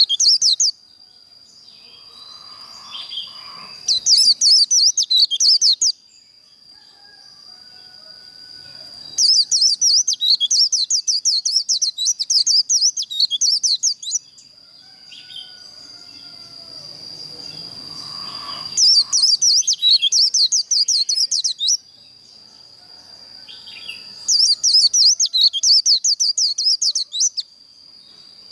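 White-eye (vành khuyên) singing its rapid twittering 'líu' song in repeated bursts, each lasting about two to five seconds, with short pauses between. A steady high thin tone runs underneath.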